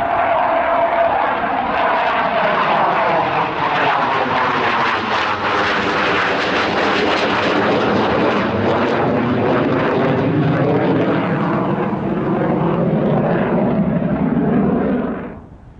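A Panavia Tornado's twin RB199 turbofans flying past overhead: loud jet noise with a phasing whoosh that sweeps down in pitch as the jet passes and heads away. The sound cuts off abruptly near the end.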